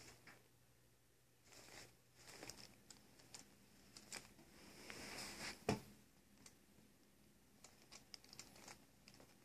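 Paper envelopes crinkling and rustling in a desk drawer as a cat moves about on them, with one sharp knock a little past halfway and a few light ticks near the end.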